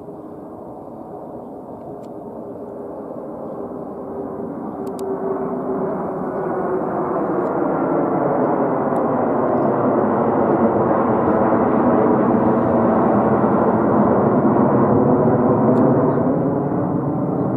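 F-16 fighter jet's engine noise, a steady rumble that grows louder over the first ten seconds or so as the jet comes overhead, then holds loud.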